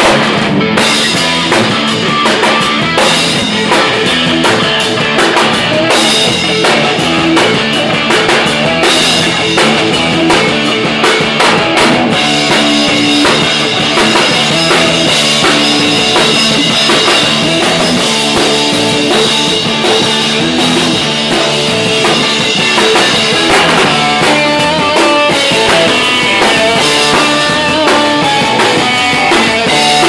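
Rock music played loud on a full drum kit, with guitar in the mix, a steady beat of cymbals and drums running through.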